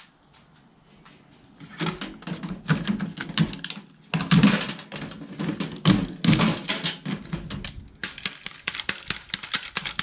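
Small ferrite-cored transformer on an inverter microwave's circuit board being broken off and pulled apart to get at its copper. From about two seconds in there is a rapid, irregular run of clicks, cracks and scraping.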